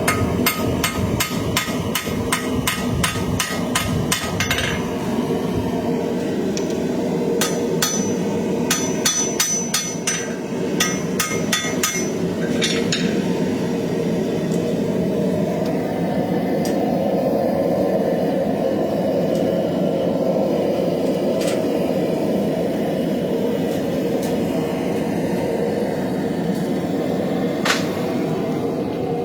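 Hammer blows on hot steel during knife forging: a quick, evenly spaced run of strikes for the first few seconds, then scattered blows until about halfway through, with a couple more near the end. A steady roar runs underneath.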